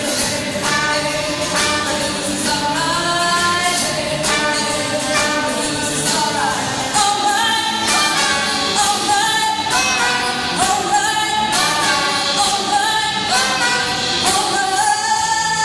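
Live pop band playing a song: female voices sing a melody into microphones over a drum kit and electric guitar, with frequent cymbal and drum hits.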